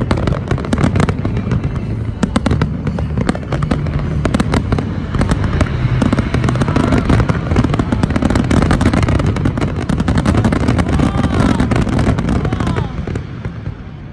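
Large fireworks display: rapid crackling and bangs over a continuous low rumble, dying away near the end.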